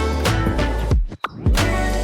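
Background music with a steady beat that cuts out for a moment about a second in and comes straight back.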